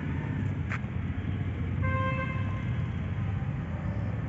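Road traffic rumble with a vehicle horn sounding once, a single steady tone lasting just under a second, about two seconds in.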